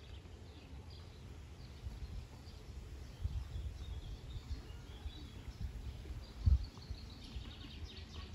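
Small birds chirping now and then over a low, uneven rumble, with one brief louder thump about six and a half seconds in.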